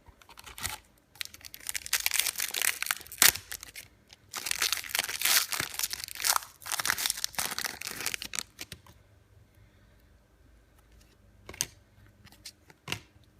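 Foil wrapper of a hockey card pack being torn open and crinkled in two stretches of a few seconds each, followed by a quieter stretch with a couple of light clicks.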